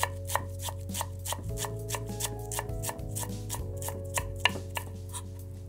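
Chef's knife rapidly mincing parsley on a wooden cutting board: an even run of quick taps, about five or six a second, as the blade rocks and chops the leaves fine.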